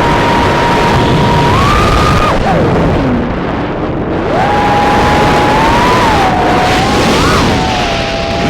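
The brushless motors of a 3-inch FPV quadcopter whine steadily over a loud rushing noise. The pitch climbs briefly, then drops steeply about three seconds in as the throttle comes off, and spins back up a second later, wavering with the stick inputs.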